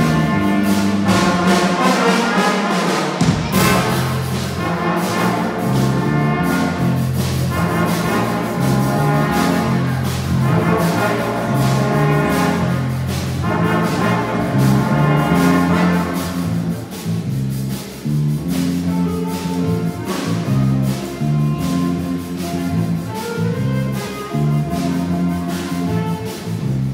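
School jazz band playing live: a brass section of trumpets and trombones over a stepping bass line and drum kit with steady cymbal strokes. The horns are loud at first and drop back a little over halfway through, leaving the bass and drums more exposed.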